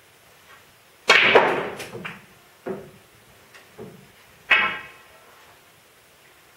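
Snooker balls being played: the cue tip striking the cue ball and balls clicking against each other, a cue lying on the table and the cushions, making a run of sharp knocks. The loudest comes about a second in and rings briefly, with another strong one near the middle and lighter taps between.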